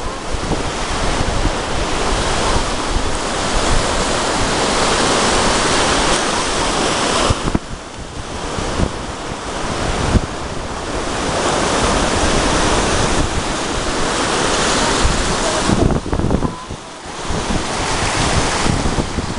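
Gulf surf breaking and washing up the beach, with heavy wind buffeting the microphone; the wind rumble eases briefly twice, about eight seconds in and near the end.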